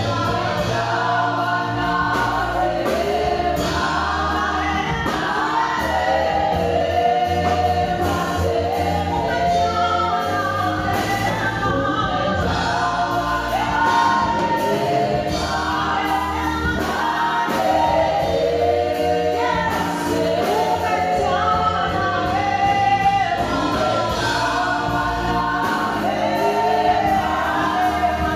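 Worship team of several singers singing a gospel song together into microphones, over a steady low instrumental backing.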